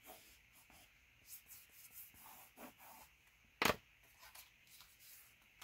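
Plastic bone folder rubbing over paper card in soft scraping strokes, burnishing a glued card flat. About three and a half seconds in, a single sharp click as the folder is set down on the table.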